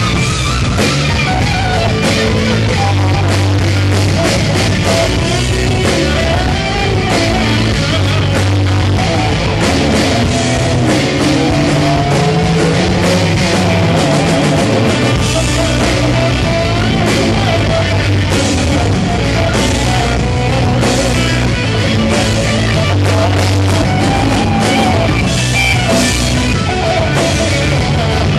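Hard rock band playing live at full volume: drums and bass under a lead electric guitar playing bending melodic lines, heard from the audience.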